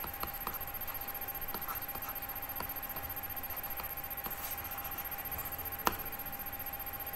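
Faint computer-mouse clicks from handwriting on a digital whiteboard, over a steady background hiss and a faint steady tone, with one sharper click about six seconds in.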